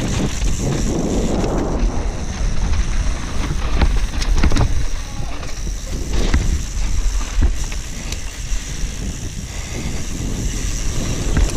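Mountain bike descending a dirt trail at speed: wind buffeting the microphone, tyre noise, and the bike rattling and knocking over bumps.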